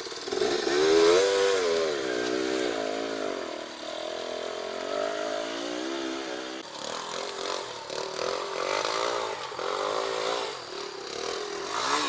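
Off-road motorcycle engine revving up and down as the bike climbs a steep, rough forest slope, its pitch rising and falling with the throttle.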